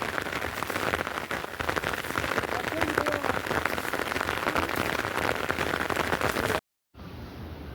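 Heavy rain falling, with a dense stream of drops striking a surface close by. The sound cuts off abruptly about six and a half seconds in, and after a moment of silence a quieter, steadier noise follows.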